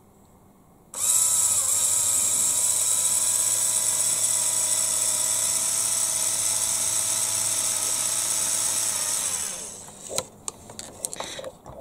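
Small 6 V geared DC motor spinning the plastic track drive gear wheel on its first test run, with no track fitted. It starts suddenly about a second in, runs with a steady high whine for about eight seconds, then fades out, followed by a few handling clicks.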